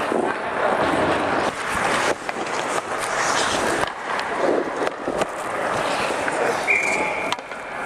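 Ice hockey play around the net: skates scraping and carving the ice, with sharp stick and puck clacks and a shot on goal. A short steady whistle blast near the end as play is stopped.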